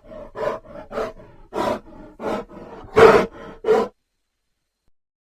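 Bear growling and roaring in a run of short, rough pulses, about two a second, the loudest one about three seconds in. It stops abruptly just before four seconds.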